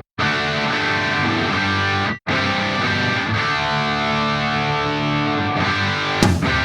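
Rock background music with distorted electric guitar playing held chords. It cuts out abruptly for a moment right at the start and again about two seconds in, and sharp hits come in near the end.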